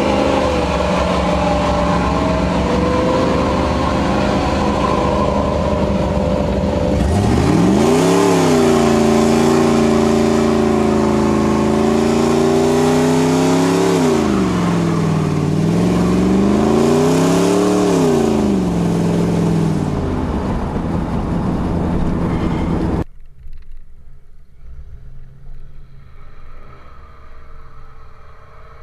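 Pontiac Trans Am V8 engines at high revs. A steady engine note during a tyre-smoking burnout, then from about seven seconds an engine revs up hard, holds high revs, drops and climbs again twice and falls back. About two-thirds through, the sound cuts abruptly to a much quieter engine running low.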